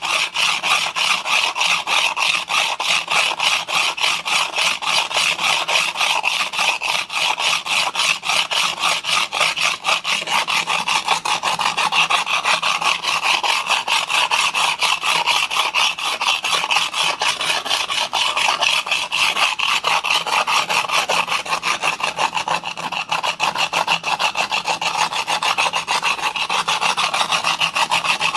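Single-bevel steel broadhead edge being sharpened on a 240-grit diamond plate in a roller guide: a steady run of quick, even back-and-forth gritty scraping strokes as the bevel side is abraded.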